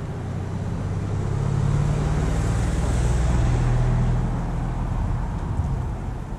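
A motor vehicle driving past, its engine's low hum swelling to a peak midway and then fading away.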